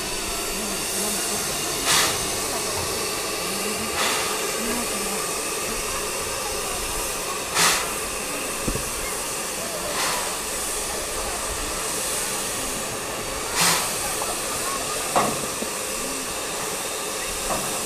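Steam tank engine dressed as Thomas the Tank Engine hissing steam steadily, with short, louder puffs of hiss every two to four seconds.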